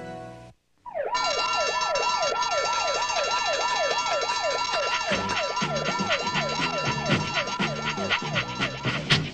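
Cartoon soundtrack: an alarm siren warbling up and down about three times a second over held music chords, starting after a brief tape dropout. A pulsing bass beat joins about halfway, and a quick rising sweep comes near the end.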